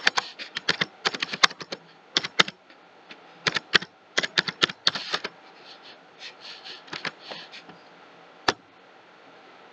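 Typing on a computer keyboard in quick runs of keystrokes, which thin out and grow fainter after about five seconds, then one single click near the end.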